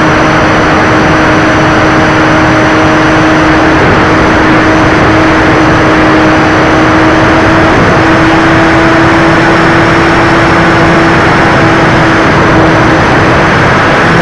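Motor and propeller of an RC model Cessna 400 Corvallis in flight, heard from a camera on its tail. Loud wind rush over the microphone with a steady propeller drone that steps slightly higher about eight seconds in.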